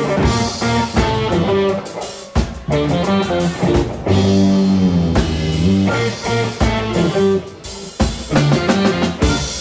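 Funk band music: electric guitar playing over a drum kit.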